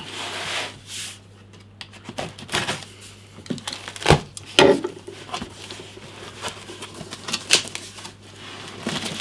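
Cardboard carton being handled and opened: scraping and rustling of the box, a sharp knock about four seconds in as a box cutter is set down on the tabletop, then clicks and rustles as the cardboard flaps are pulled open.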